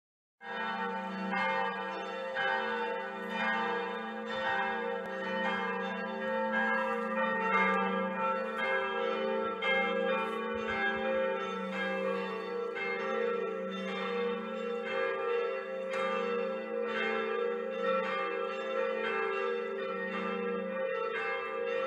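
Several church bells ringing together in a peal, their strikes overlapping with one another. The ringing starts about half a second in.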